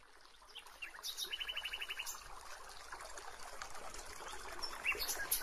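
Birds chirping over a gentle trickle of running water, with a quick high trill about a second and a half in and a short rising chirp near the end.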